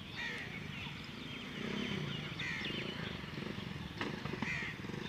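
Several birds chirping and calling over and over in short rising-and-falling notes, over a steady low background rumble.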